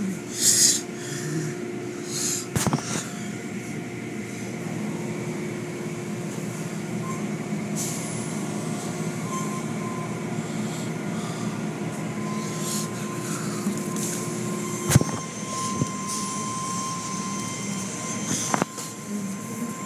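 Automatic car wash machinery running, with a steady mechanical hum and hiss of water spray. A few sharp knocks stand out, one early, one about three-quarters of the way through, and one near the end.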